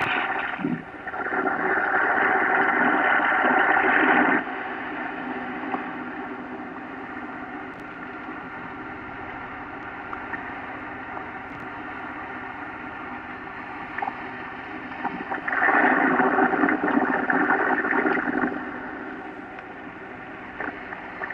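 Sailboat's engine running steadily at constant speed under power, with water noise along the hull. Two louder stretches of rushing noise come in, one just after the start and one about three quarters of the way through.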